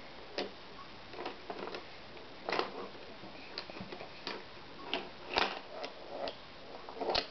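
Irregular clicks and clacks of plastic baby toys on an activity centre being handled and knocked together, a dozen or so uneven taps with a louder clack near the end.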